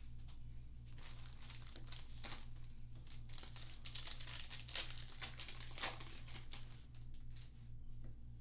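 Foil trading-card pack wrappers being torn open and crinkled by hand, an irregular crackling that is busiest in the middle.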